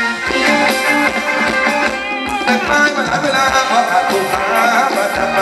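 Live Thai luk thung band music for ramwong dancing, with a drum beat under it.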